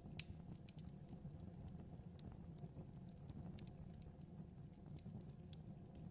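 Wood fire burning in a fireplace: faint, irregular crackles and pops over a low, steady rumble of the flames.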